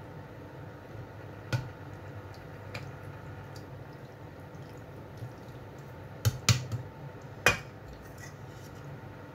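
Metal spoon clinking against a stainless steel food mill full of cooked tomatoes: two single clinks in the first few seconds, then a quick run of four clinks later on.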